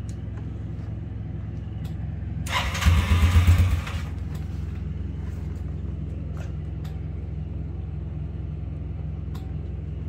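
ATV engine idling steadily on stale fuel, smoking blue, which is put down to bad gas after months unused. About two and a half seconds in it runs louder and harder for a second or so, with a hiss, then settles back to idle.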